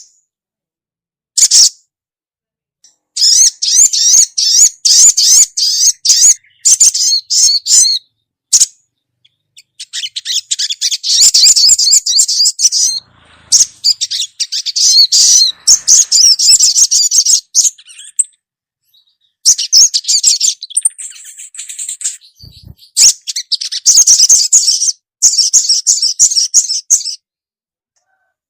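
Female spiderhunter (sogok ontong) calling: runs of rapid, high chirps lasting a few seconds each, broken by short pauses.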